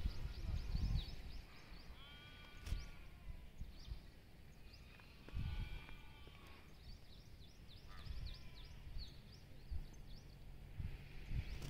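Sheep bleating: one wavering call about two seconds in and a longer one around five to six seconds in. Under them runs a scatter of short high chirps, with gusts of low rumble.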